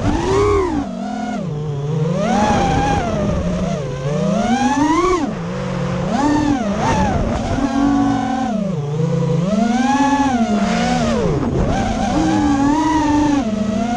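FPV racing quadcopter's brushless motors whining as it flies, heard close from the onboard camera. The pitch swoops up and down every second or so as the throttle changes.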